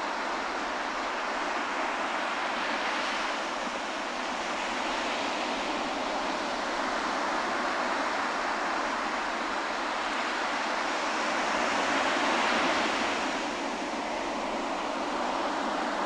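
Small surf breaking and washing up a sandy beach: a steady rush of water that swells louder about three-quarters of the way through, then eases.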